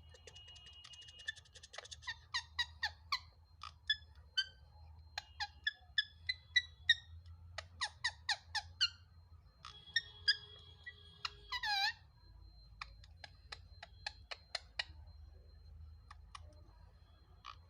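Pet parrot making a long series of short, sharp squeaks, chirps and clicks in quick bunches, with one louder drawn-out squeal about twelve seconds in.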